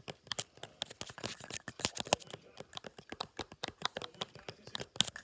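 Rapid, irregular clicking and tapping of small plastic pieces as fidget toys are handled, several clicks a second, stopping abruptly at the end.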